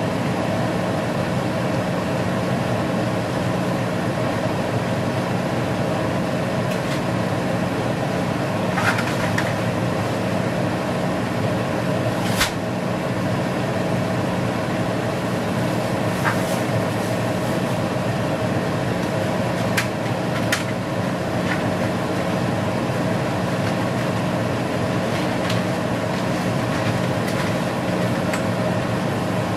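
Pot of broth at a rolling boil on the stove, a steady rushing, bubbling noise with a low hum under it, and a handful of light clicks and clinks now and then.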